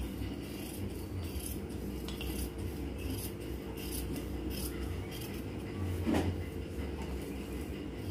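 Large tailoring scissors cutting through blouse fabric, a steady run of short snips about two a second. A brief rising sound comes about six seconds in.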